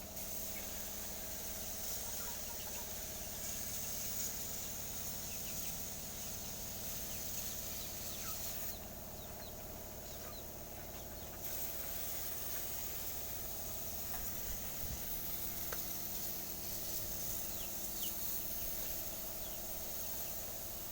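Outdoor rural ambience: a steady low hum under a constant high insect drone, with scattered short bird chirps.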